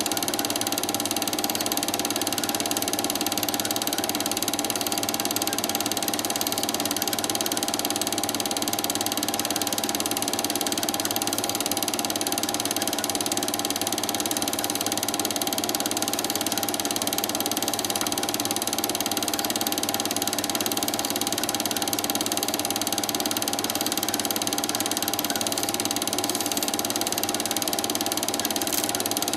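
Cine film projector running: the steady mechanical clatter and whir of its film-transport mechanism, unchanging throughout.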